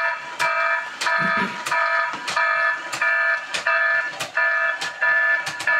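Greeting-card recordable sound chip in a 3D-printed toy robot playing a recorded alarm sound through its small speaker: a repeating beep, about one and a half a second, each with a click at its start. It is the light-triggered hit effect, set off by a flashlight beam on the robot's photo-sensor target.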